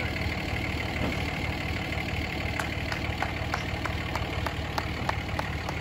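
A vehicle engine idling steadily, with a run of sharp ticks about three a second starting about halfway through.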